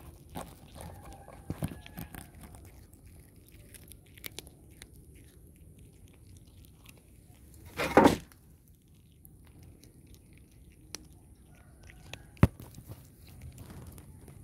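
A cat chewing and biting cooked fish right at the microphone, with many small wet clicks and scuffs. About eight seconds in comes a brief loud bump, the loudest sound, and a single sharp tap a few seconds later.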